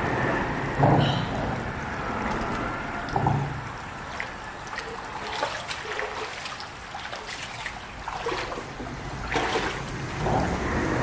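Water splashing and sloshing as a person wades through a shallow river and rummages with her hands under the surface, over the steady trickle of the flowing stream, with a few dull thumps.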